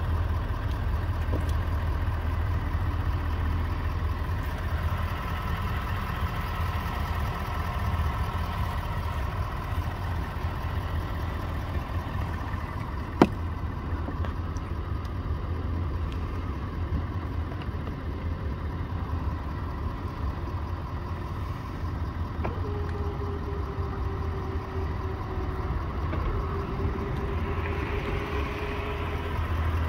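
Ford F-250 Super Duty pickup's engine running steadily with a low hum. A single sharp click comes about 13 seconds in, and a faint whine joins for the last several seconds.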